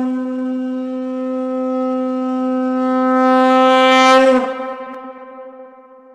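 Conch shell (shankh) blown in one long held note that swells, then falls away about four seconds in and fades out.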